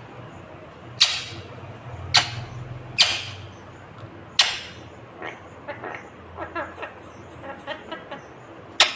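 Rose-ringed (Indian ringneck) parakeet giving short, sharp, loud screeches, five of them at uneven intervals with the last near the end. Between about five and eight seconds in it makes softer, quick chattering notes.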